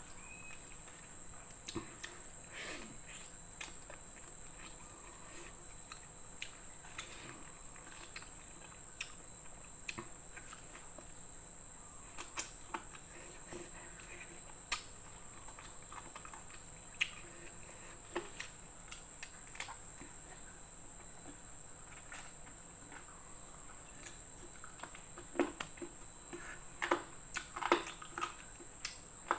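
Close-up eating sounds: scattered wet mouth clicks and smacks of chewing, in a busier cluster near the end, over a steady high-pitched whine.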